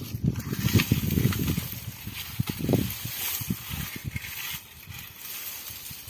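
Wind buffeting the microphone in irregular low gusts, strongest in the first three seconds, with footsteps on dry, sandy ground.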